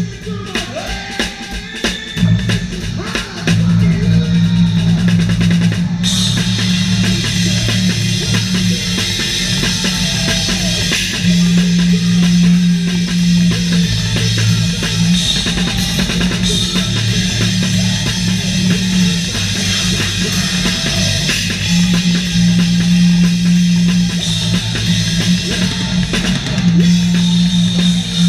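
Live rock band playing, driven by a drum kit with bass drum and cymbals. The first few seconds hold sparse drum hits, then the full band with bass and guitars comes in, and cymbals ring out from about six seconds in.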